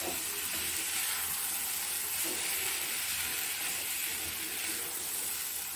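Steady sizzle of chopped cluster beans and soaked chana dal frying in hot oil in a kadhai as they are sautéed.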